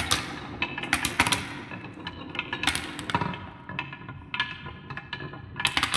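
Marbles rolling down a wavy wooden marble-run track, with irregular sharp clacks as they knock against the wood and each other.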